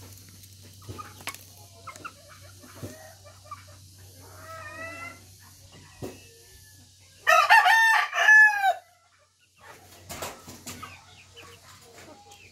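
A rooster crows once, loud, about seven seconds in, lasting about a second and a half. A fainter chicken call comes a couple of seconds before it.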